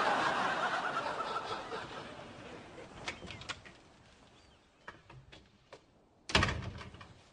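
Studio audience laughter fading away over the first few seconds. A few light clicks follow, then a door shuts with one sharp bang about six seconds in.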